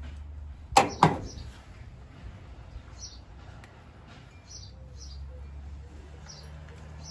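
Two sharp metallic clicks about a quarter second apart, roughly a second in, from handling the new clutch master cylinder and its pushrod. After them, small birds chirp a few times over a low steady background hum.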